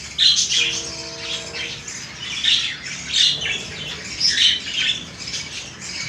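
A flock of budgerigars chattering with many short, harsh squawks and chirps overlapping one after another as they feed together.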